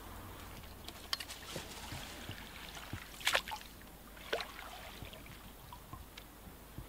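Hooked asp splashing at the water's surface among lily pads: a few short splashes, the sharpest about three seconds in.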